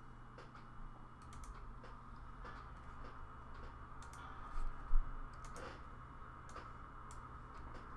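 Scattered light clicks of a computer keyboard and mouse over a steady low hum, with one louder knock about five seconds in.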